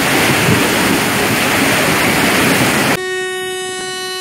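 A passenger train rushing through floodwater, a loud steady wash of spray and rumble. About three seconds in this cuts off, and a locomotive horn sounds one long, steady blast.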